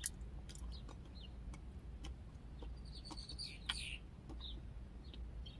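Faint crunching and scattered crackling clicks from a bite of white chocolate bar with popping candy being chewed, over a steady low rumble, with a few short high chirps.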